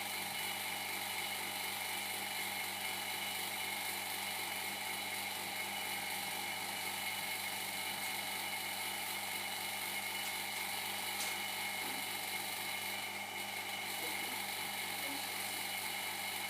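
Vacuum pump running with a steady, even hum, drawing suction through the hose to a manual laminating machine that holds the LCD down while film is laminated on. A few faint ticks of handling sound over it.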